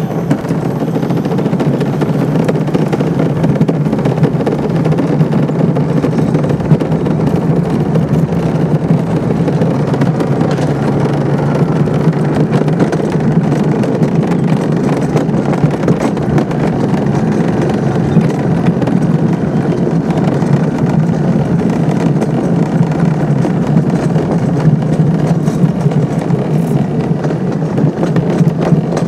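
Luge cart rolling downhill on a concrete track: a steady, loud rumble and rattle from its wheels and frame, with small clicks from bumps in the surface.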